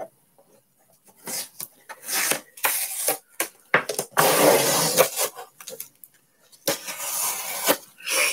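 Rustling and scraping from handling a metal trading-card tin and its packaging, in irregular bursts, with two longer rustles in the second half.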